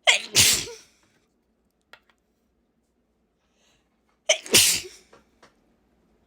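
A person sneezing hard twice, about four seconds apart. Each sneeze is a quick sharp catch followed by a longer explosive burst, and a short breath in comes just before the second one.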